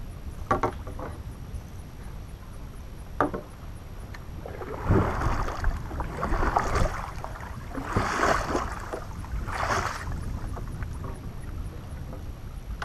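Kayak paddle strokes in the water: four splashing strokes about a second and a half apart, after two sharp knocks in the first few seconds.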